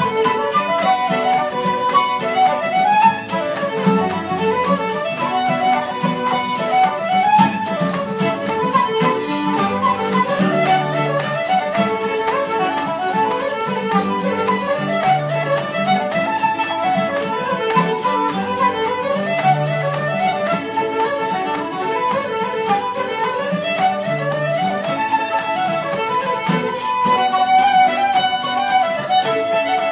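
Irish traditional session music: fiddles with flute and mandolin playing a dance tune together in unison, quick running notes at a steady pace.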